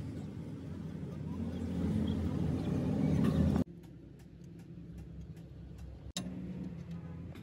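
A vehicle engine running with a steady low rumble that grows louder and cuts off suddenly about three and a half seconds in. After that it is quieter, with scattered light metallic clicks as a bolt and bracket are handled and fitted on the tractor's pump.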